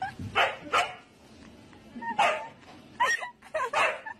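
Husky giving a series of short barks and yips: two near the start, then several more from about two seconds in.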